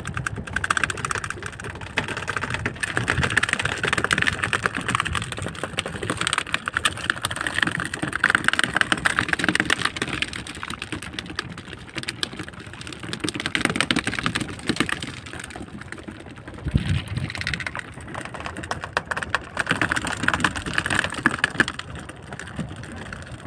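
Fast, irregular tapping and rattling that swells and fades in waves, from freshly caught tongkol (small mackerel tuna) beating their tails on the boat's wooden deck and splashing on the multi-hook line as it is hauled in.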